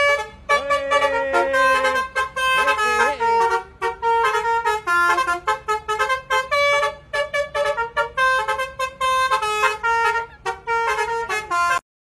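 Basuri-type bus telolet horn playing a fast melody, its tones stepping quickly from note to note. It cuts off suddenly near the end.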